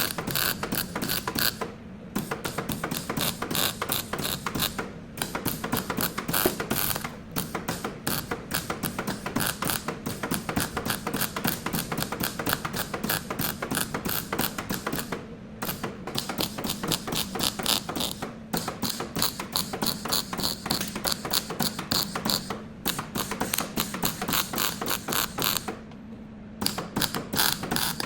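Ratchet wrench clicking rapidly in runs, with short pauses every few seconds.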